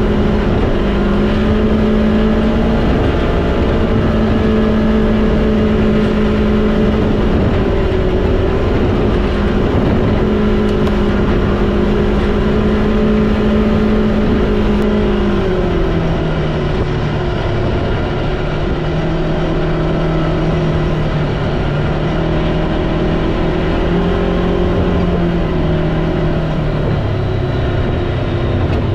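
A vehicle engine running under way, steady in pitch, stepping down to a lower pitch about halfway through and again near the end.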